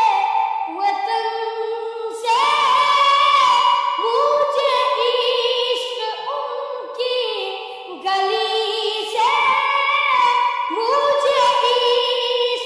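A child's high voice singing an Urdu naat unaccompanied, holding long notes with ornamented turns and vibrato. New phrases start about two seconds in, again near eight seconds and near eleven seconds.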